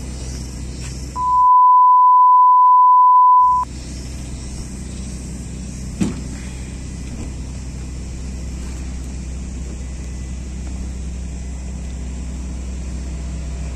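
A steady low engine rumble runs throughout. About a second in it is cut off and replaced by a loud, pure beep tone lasting about two and a half seconds, an edited-in censor bleep. A single short knock comes a few seconds after the beep.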